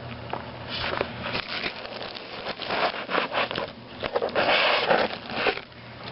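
Packaging crinkling and tearing as it is pulled off a bobblehead figure by hand, in irregular bursts, loudest in a sustained stretch a little past the middle.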